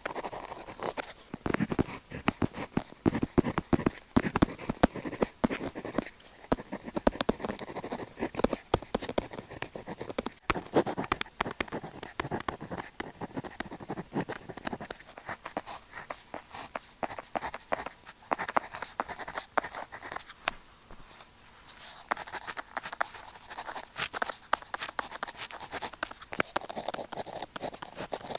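Pen tip scratching and tapping on paper in quick strokes, a dense run of small scratches and ticks. About halfway through the sound turns thinner and sharper.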